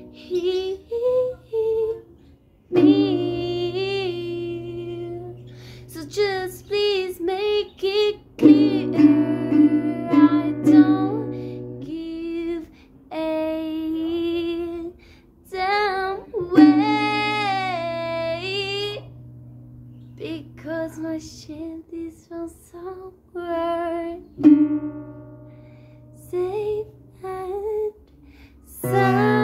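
A young woman singing a slow melody to her own strummed acoustic guitar, played by a beginner, in phrases with short breaks between them.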